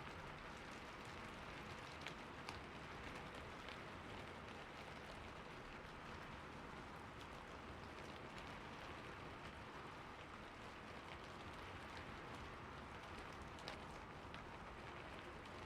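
Soft, steady rain falling, with a few separate louder drops ticking now and then.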